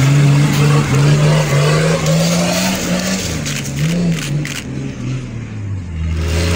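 Off-road 4x4's engine revving under load as it passes close and climbs a forest trail. Its pitch rises over the first few seconds, then fades as it pulls away. Near the end a second vehicle's engine comes in at a lower pitch.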